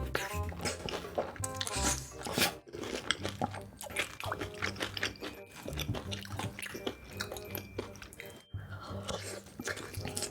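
Close-miked crunching and chewing of food in mukbang-style eating, over background music with a steady bass line. The sound drops out briefly a few times.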